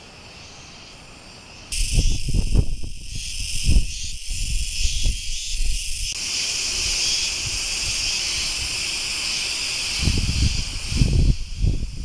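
Cicadas chirping in a loud, steady, shrill chorus that jumps in suddenly about two seconds in, after a fainter start. Low rumbling bursts on the microphone come and go over the first few seconds and again near the end.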